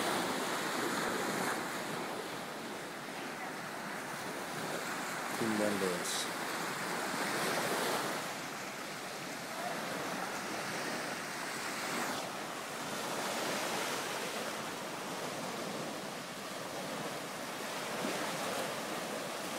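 Small Gulf of Mexico waves breaking and washing up on a sandy beach: a steady hiss of surf that swells and eases every few seconds.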